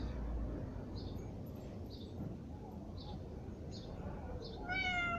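Domestic cat meowing once near the end, a single call that falls slightly in pitch. Faint short high chirps come about once a second before it.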